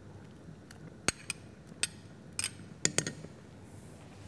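A spoon clinking and knocking against a cooking pot and mortar while garlic-mint paste is spooned into a stew: about half a dozen sharp, irregular taps, a pair about a second in and more around two and three seconds in.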